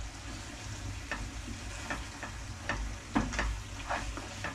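Food sizzling in a frying pan as it is stirred with a wooden spatula, which scrapes and knocks against the pan about six times.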